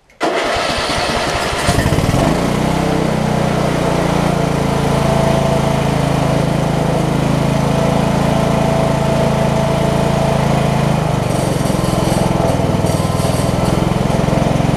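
Briggs & Stratton 15.5 hp riding-mower engine cranking briefly and catching within about two seconds, then running steadily on its first start with a freshly fitted carburetor and fuel line. About eleven seconds in the running sound shifts and a light high clatter joins it.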